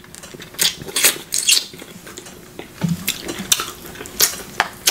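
Close-up eating sounds of crab legs: meat sucked and slurped out of the shells, with a string of sharp, wet smacks and clicks at irregular intervals.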